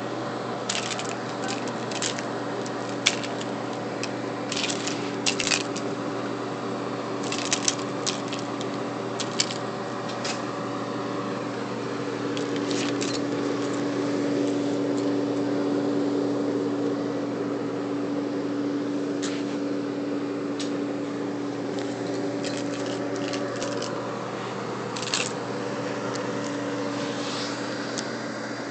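Steady hum and fan whir of a running portable dehumidifier, growing louder for several seconds in the middle. Keys on a key ring jingle in brief shakes through the first ten seconds and again near the end.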